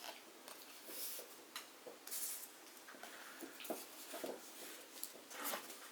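Cardboard kit pieces handled and pressed together by hand: faint scattered scratching and rubbing of cardboard, with a few short scrapes spaced through the stretch.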